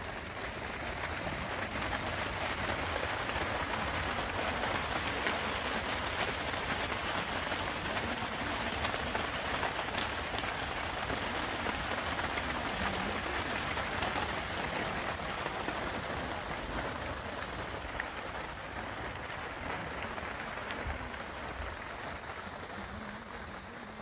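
Steady rain falling on the plastic sheeting of a makeshift shelter, with one sharp tick about ten seconds in.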